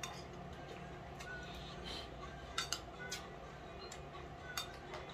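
Metal spoons clinking and scraping against plates and foil trays as rice is served and eaten, with a few sharp clinks a little past halfway and again near the end, over a steady low hum.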